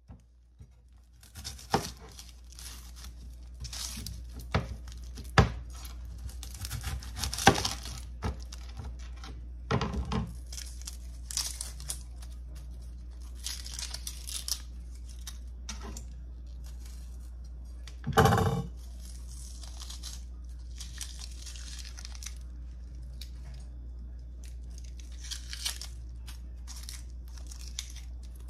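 Dry, papery onion skin crackling and tearing as a yellow onion is peeled by hand, in irregular bursts with a few sharper clicks, over a steady low hum. About two-thirds of the way through there is one louder half-second burst.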